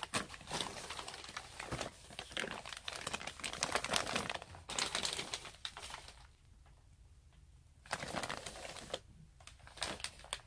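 Plastic bag packaging crinkling and rustling as it is handled and unwrapped, in a long run of crackles, then a pause of about two seconds, another short burst and a few scattered crackles near the end.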